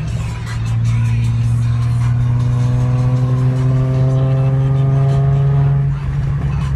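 Toyota Supra running with a steady low hum while a pitched tone climbs slowly for about five seconds, then drops away about six seconds in. This is the noise the car is being filmed for.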